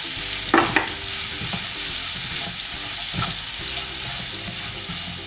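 Sliced onions sizzling steadily in hot coconut oil and ghee in a pan, with a few short scrapes and knocks of a spoon stirring them.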